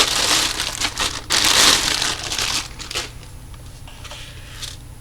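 Packaging crinkling and rustling as it is handled, loudest over the first three seconds and then dying down to a few light rustles.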